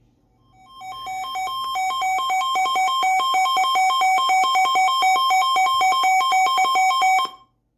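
Weather radio's alert alarm sounding for a severe thunderstorm warning: an electronic two-tone beep that alternates rapidly between two pitches, grows louder over its first couple of seconds, then holds steady and cuts off suddenly.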